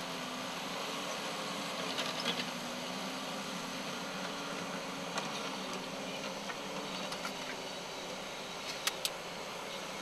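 Steady outdoor background hiss with a faint low hum, broken by a few short sharp ticks: a pair about two seconds in, one near the middle and a pair near the end.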